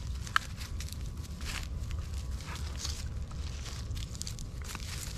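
Two puppies, an Alaskan malamute and an Australian shepherd, scuffling over a stick on grass: scattered sharp clicks and cracks from the stick and their paws, the sharpest about half a second in, over a steady low rumble.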